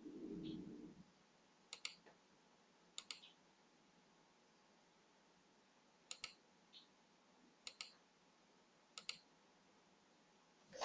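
Faint computer mouse clicks, each a quick press-and-release pair, five times over, spaced a second or more apart. A brief low hum at the very start.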